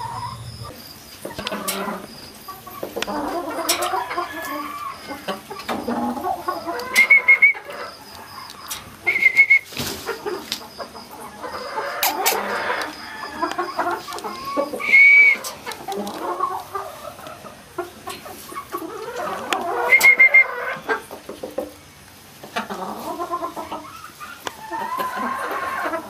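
A flock of gamefowl hens clucking and calling on and off, with four short, loud, high-pitched calls standing out.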